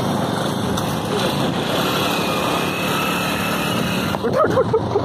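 Scooter and motorcycle engines running steadily with road noise, heard while riding alongside them; a brief voice near the end.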